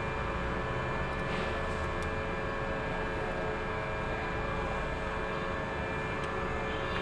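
A steady mechanical drone with several high fixed tones running through it, unchanging throughout, like a machine or engine running at constant speed. A couple of faint clicks come about one and two seconds in.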